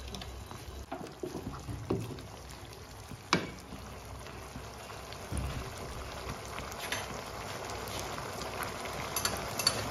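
Thick chicken and tomato sauce simmering in a nonstick wok, bubbling steadily with scattered small pops. One sharper pop comes about a third of the way in.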